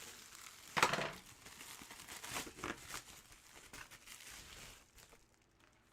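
Plastic packaging crinkling and rustling as it is handled and pulled open, with the loudest crackle about a second in.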